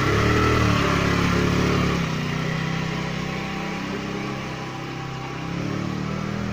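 Jialing 125–130 cc four-stroke scooter engine running, a little louder for the first two seconds, then settling lower and steady, with a slight rise near the end.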